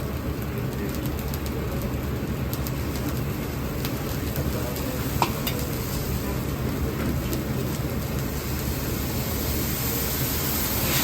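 Chicken wings deep-frying in hot oil: a steady sizzle with a few sharp ticks, over a low steady rumble. The sizzle grows louder near the end.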